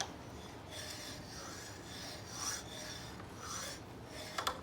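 A few soft rasping, rubbing strokes about a second apart, like something scraped or rubbed against a rough surface.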